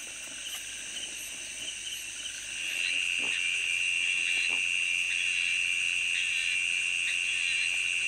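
Night-time chorus of insects and frogs: steady high-pitched trilling, joined about two and a half seconds in by a louder continuous high trill.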